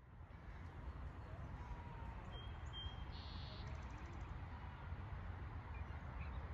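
Outdoor ambience that fades in from silence: a steady low rumble with a faint hiss above it. About two and a half seconds in there are two short, faint bird chirps, then a brief buzzy trill.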